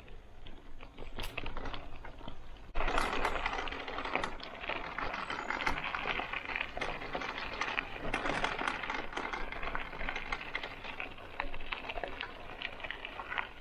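Bicycle tyres rolling over a gravel path: a dense crunching crackle full of sharp clicks, which starts abruptly about three seconds in after softer scattered ticking on a dirt track.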